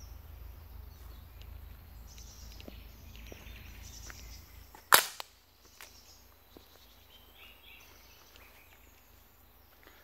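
Outdoor ambience with faint bird chirps and a low rumble, broken about halfway through by a single sharp crack or knock. The rumble stops at the crack, and a few faint ticks follow.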